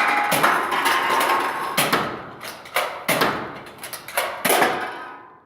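A run of loud clattering knocks and scrapes, about half a dozen at uneven spacing, each trailing off.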